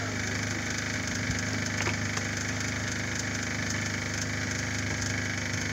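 An engine idling with a steady low drone.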